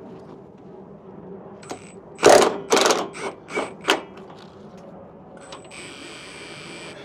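Several sharp metallic clanks and knocks of tools and parts being handled while a Jeep is taken apart, the loudest about two seconds in, followed by a steady high hiss for the last second and a half.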